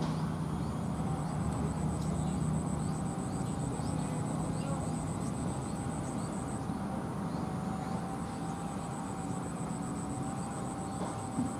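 Outdoor ambience: a steady low engine-like drone with a held whine, under a faint high pulsing trill and scattered short chirps.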